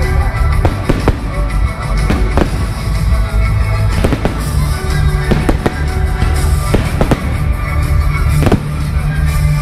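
Aerial fireworks shells bursting in quick, irregular succession, a dozen or more bangs within a few seconds, with music playing underneath.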